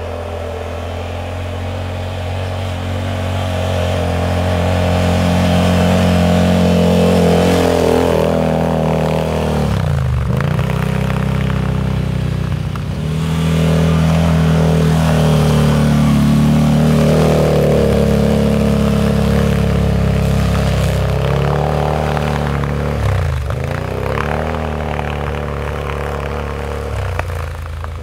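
Can-Am Renegade 800's V-twin engine revving up and easing off over and over as the four-wheeler spins its rear wheels drifting in snow in two-wheel drive. Twice, about ten seconds in and again about twenty-three seconds in, the revs drop sharply and climb straight back.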